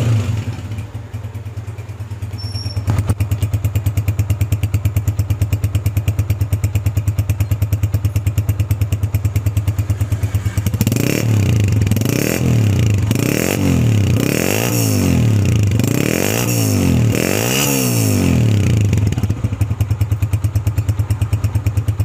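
Honda CG125's single-cylinder four-stroke engine, rebuilt and just through its 500 km running-in, idling with a steady even beat. About halfway through it is revved up and let fall back several times in quick succession, then it settles back to idle.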